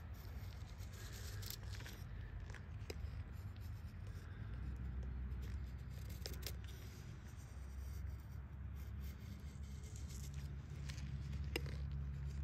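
An LT Wright Large Northern Hunter knife shaving curls down a split stick of wood, carving a feather stick: a series of soft scraping cuts with occasional sharp ticks, over a steady low rumble.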